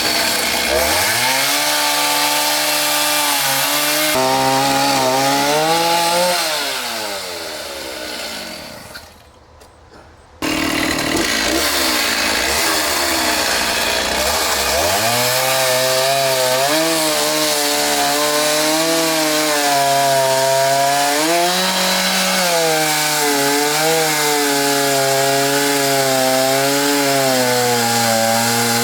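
Stihl chainsaw revving up and cutting wood, its pitch wavering and dipping under load. About six seconds in the engine winds down and falls nearly quiet. Then the sound jumps back abruptly, and a few seconds later the saw revs up again into more cutting.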